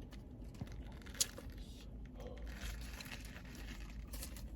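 Faint eating sounds: a Subway sandwich being bitten and chewed, with its paper wrapper crinkling. One sharp click comes about a second in, over a steady low rumble.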